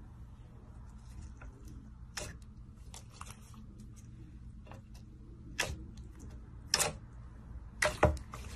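Clear purple slime being pressed and squeezed by hand, giving a series of sharp clicks and pops as trapped air bursts. The pops grow louder in the second half, over a low steady hum.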